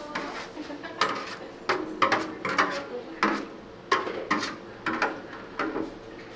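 Kitchenware clattering: a dozen or so irregular sharp clinks and knocks of dishes and metal utensils being handled, some ringing briefly.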